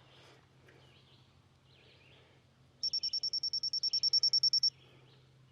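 A small songbird's dry, rapid trill: a run of high, evenly spaced notes on one pitch, about two seconds long, beginning about halfway through. A faint steady low hum runs underneath.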